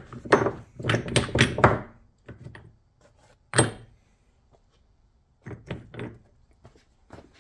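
Cast aluminium ingots being set down and slid on a wooden workbench, knocking on the wood and clinking against each other: a quick run of clunks in the first two seconds, one sharper ringing clink about three and a half seconds in, then a few more knocks near the end.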